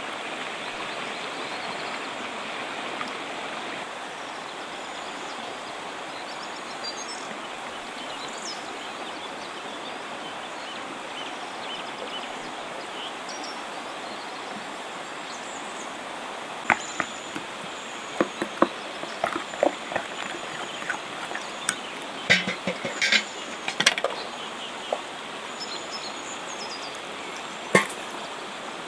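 Steady rush of a river. In the second half, a wooden spoon stirring thick sauce in an enamel bowl gives a run of sharp clicks and taps against the bowl.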